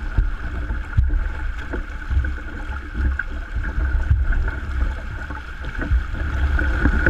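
Fast river current rushing and splashing around a log jam and a person clinging to it, with a steady low wind rumble on the microphone.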